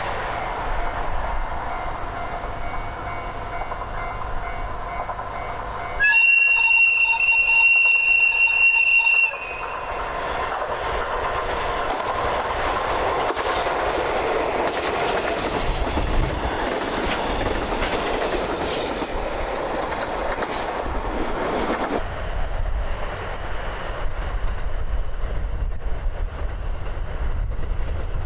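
Red diesel locomotive approaching with its engine running, sounding its horn in one loud steady blast of about three seconds some six seconds in, then passing close by with engine noise and wheels clicking over the rail joints. After about twenty-two seconds the sound drops to a quieter low rumble and hiss.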